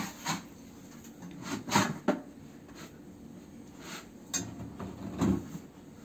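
A plastic laundry basin being knocked about and clothes rubbing as laundry is handled at the open drum of a front-loading washing machine: a handful of short bumps and rustles, with the loudest ones about a second and a half in and near the end.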